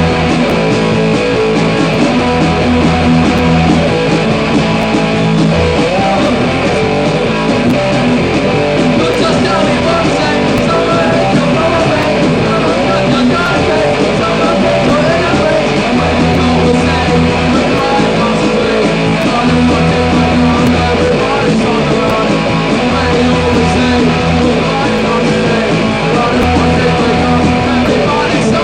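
Punk rock band playing loud, distorted electric guitar over bass and drums, with some singing.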